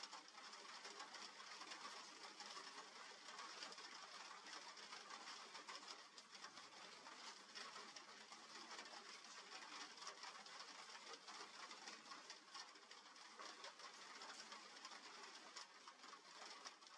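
Faint, steady hiss of light rain falling, with scattered ticks of drops.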